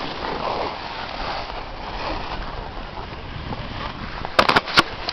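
Wind on the microphone and the hiss of sliding over snow on a ski slope, with three sharp clicks close together near the end.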